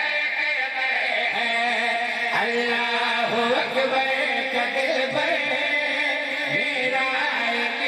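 A man singing a devotional Urdu-Punjabi qasida into a microphone over a PA system, with long held notes that slide up and down between words.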